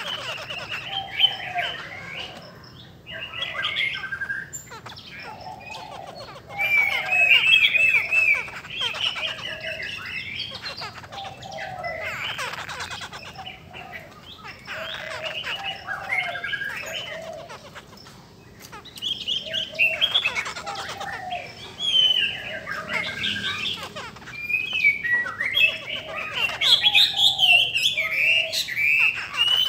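Caged laughingthrushes (khướu) singing and calling: loud, varied whistled phrases, some high and some lower, repeated every couple of seconds with short pauses between.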